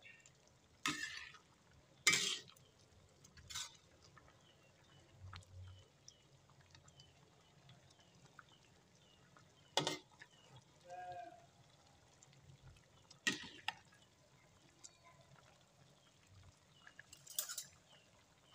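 A metal spoon stirring a pot of simmering coconut-milk vegetable stew, knocking and scraping against the metal pan in several short, sharp clinks spread across a few seconds.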